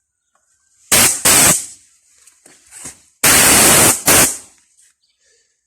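Compressed air from an Einhell oil-free portable compressor let out through its hose in bursts: two short blasts about a second in, then a longer blast and one more brief one after it. The air is being used to bleed the tank down from 8 bar toward the 6 bar point where the compressor starts again by itself.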